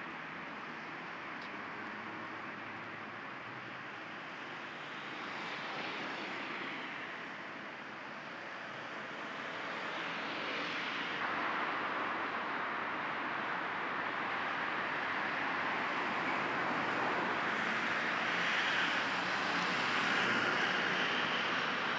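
Road traffic noise: a steady hiss of vehicles passing, swelling and fading several times and loudest a few seconds before the end.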